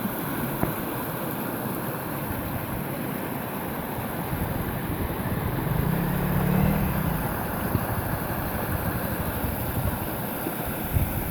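Mountain waterfall rushing, a steady full roar of falling water.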